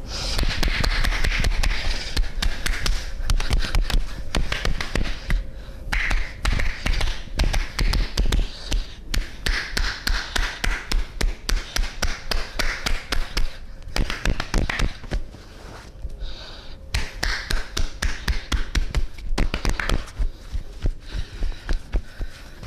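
Percussive massage: hands slapping and tapping on the body in quick runs of about three or four strokes a second, with a few short pauses.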